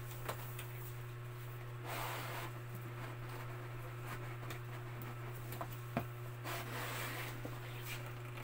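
Cardboard box and moulded pulp packaging insert rustling and scraping as they are handled and pulled apart, in two scratchy stretches with a few light clicks, over a steady low hum.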